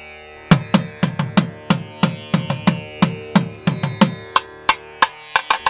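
Background Indian-style music: a steady drone, then hand-drum strokes come in about half a second in, about three a second, each with a low pitch that drops after the hit, getting quicker near the end.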